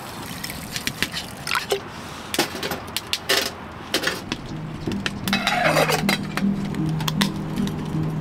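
Water poured into a stainless steel pot, with metal clinks and knocks as the pot is handled and set down on top of a small wood-burning stove. Soft background music comes in about halfway through.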